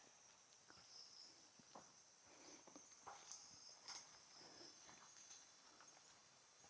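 Near silence: a faint steady insect chirring in the background, with a few soft scattered taps.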